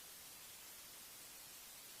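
Near silence: a faint, steady hiss with no crackles or pops.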